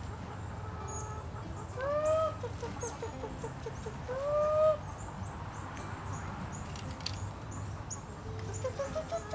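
A person's chicken-calling noise: two rising calls about two seconds apart, the first followed by a quick run of short clucks. Backyard hens cluck along.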